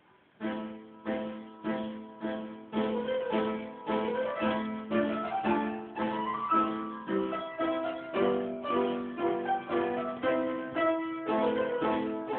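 Piano playing a simple tune, its notes struck at about two a second, starting about half a second in.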